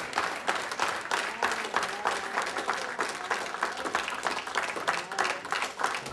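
A group of people clapping their hands, many quick sharp claps overlapping.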